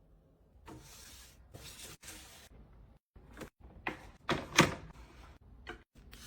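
Handling noise: two short rustling bursts, then a string of sharp knocks and clatters, the loudest about four and a half seconds in.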